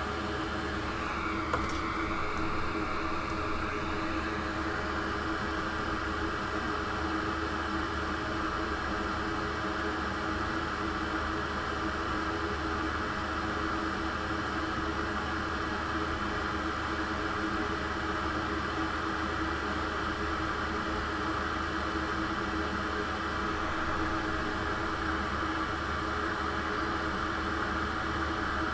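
Steady whirring of a fan with a constant electrical hum beneath it, and a single small click about a second and a half in.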